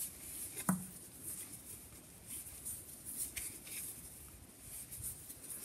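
Faint soft clicks and scratchy rubbing of 10 mm wooden knitting needles working chunky wool yarn, as stitches are knitted and purled.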